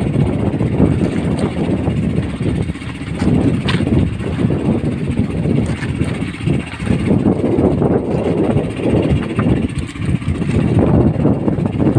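Outrigger fishing boat's engine running continuously as the boat travels, a loud, ragged low rumble.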